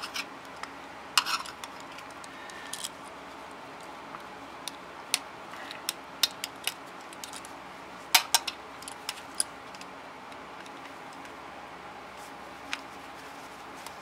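Screwdriver and outlet receptacle clicking and clinking against metal while the bare ground wire is fastened to the receptacle's green ground screw: scattered sharp clicks, loudest about eight seconds in, then mostly quiet apart from one click near the end.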